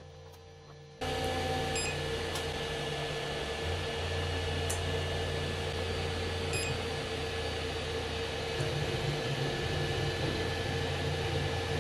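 FLSUN Super Racer delta 3D printer running a print: its cooling fans whir steadily over a low motor hum that shifts in pitch now and then. The sound comes in suddenly about a second in, after a quieter low hum, and a few faint ticks sit on top.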